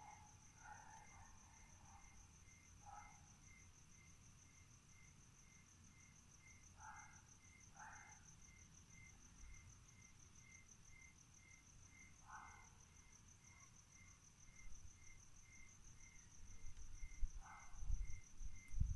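Crickets chirping on a quiet night: one high, steady pulsing trill and a lower chirp repeated about twice a second. A few short calls break in here and there, and a few low thumps come near the end.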